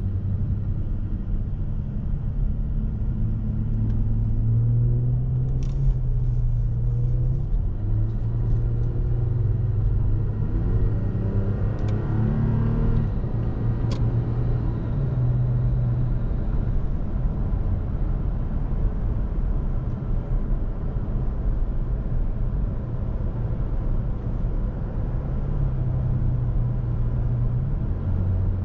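2017 Toyota Tacoma's 3.5-litre V6 running on the move, heard from inside the cab as a steady low engine and road rumble. The engine note rises twice as the truck accelerates, about five and about twelve seconds in. A few light clicks come about six seconds in, and one sharp click near the middle.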